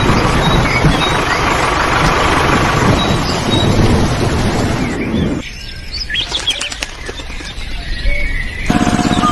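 Small birds chirping in short, repeated high notes over a steady rushing noise that drops away about five and a half seconds in, leaving the chirps and a few quick rising whistles. Near the end a steady hum starts.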